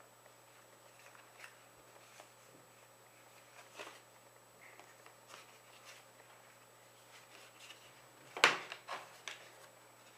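Folded paper glider models handled by hand: light rustling and crinkling of stiff paper, with one loud, sharp crackle about eight seconds in and a few smaller ones after it.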